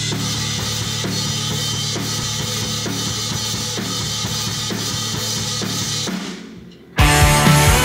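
Instrumental intro of a rock song: a steady drum-kit beat over a held low note, fading away about six seconds in. Then the full band comes in loud, near the end.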